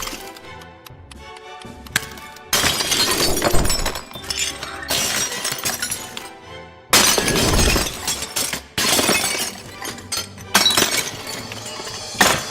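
A run of glass breaking and shattering effects, over background music. Two big crashes about two and a half and seven seconds in ring on for over a second each. Shorter smashes and clinks of shards come between and after them.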